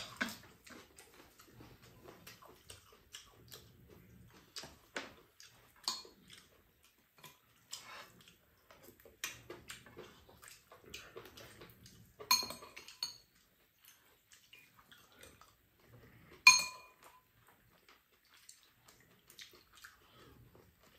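Spoons clinking and scraping against a frying pan and bowls as fried rice is scooped up and eaten: scattered soft clicks, with two sharp ringing clinks a little past the middle and about three-quarters through, the second the loudest.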